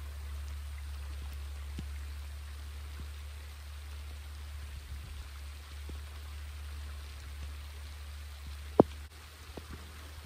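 Steady rush of river water and rain with a low rumble beneath, dotted with small ticks and one sharp click about nine seconds in.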